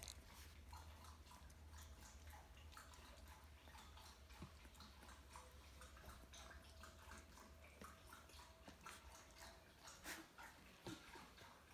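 Near silence: a steady low room hum with faint, scattered soft ticks and rustles.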